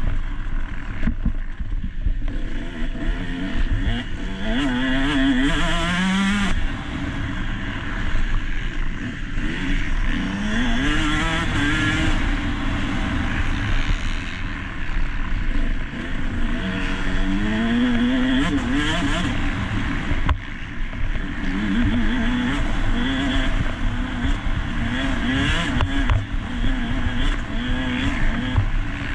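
Motocross bike engine revving hard under way, its pitch climbing in several long rises and then in a run of short quick rises and drops near the end.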